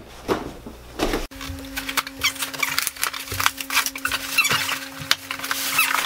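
Blade cutting through the tape of a cardboard box, then an abrupt edit about a second in to a steady held note with a fainter octave above, under quick scratchy clicks and rustles of cardboard being handled.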